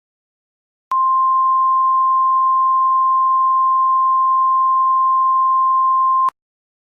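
Emergency alert attention tone: a single steady high-pitched tone that starts abruptly about a second in, holds unchanged for about five seconds and cuts off sharply, signalling that an alert message follows.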